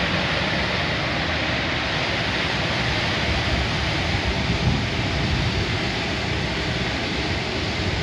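Giant air-conditioner outdoor units running behind a louvered wall: a steady rush of fan air with a faint high hum over a low rumble.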